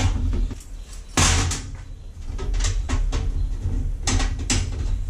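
Folded sheet metal rattling and clattering as it is handled while a bolt is fitted through its centre, with a few sharp metallic knocks, the loudest about a second in.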